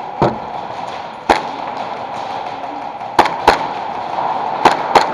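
Airsoft guns firing: six sharp cracks, two single shots followed by two quick pairs, over a steady background noise.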